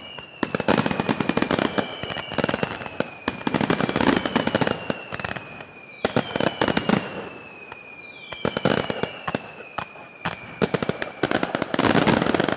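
Fireworks display: volleys of rapid crackling bangs, one after another, with several long whistles that each fall slowly in pitch over a couple of seconds. The loudest volley comes near the end.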